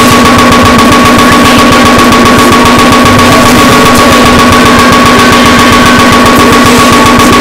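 Extremely loud, clipped and distorted noise: a dense, rapid machine-gun-like crackle over a steady two-note buzzing tone.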